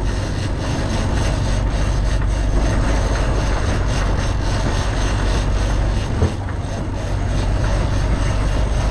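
Fishing boat's engine running steadily at trolling speed, a constant low drone with the wash of the wake, and a single brief knock about six seconds in.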